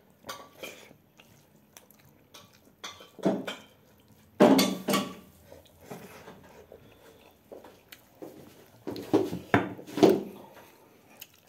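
Plates clinking and scraping during a meal of rice and dal eaten by hand, in scattered short knocks with louder clusters about three, five and nine to ten seconds in.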